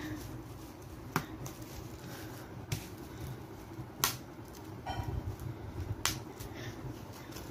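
Bubble wrap being popped by hand, one bubble at a time: about four sharp pops, a second or two apart.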